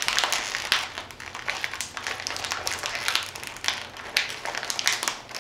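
Plastic snack bag crinkling and crackling in the hands as it is pulled at to tear it open, without it giving way.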